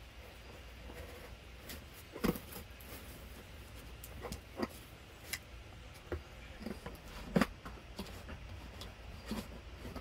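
Scissors cutting open packing tape on a cardboard box: scattered clicks, snips and taps of the blades and hands against the cardboard, with two louder knocks about two and seven seconds in.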